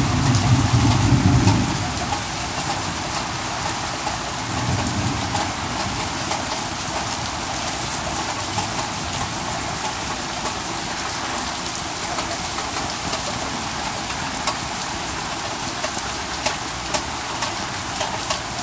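Heavy rain pouring down in a steady hiss on the yard and flooded ground, a torrential downpour. A low rumble fades out about a second and a half in, and sharp ticks of nearby drops sound now and then, more often near the end.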